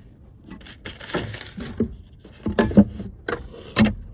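Cooking pots and camp-stove gear being handled: a series of irregular knocks and clunks, the loudest about two and a half and four seconds in.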